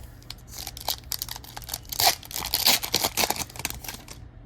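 A hockey card pack's foil wrapper being torn open and crinkled: a dense run of crackling rustles, loudest about halfway through.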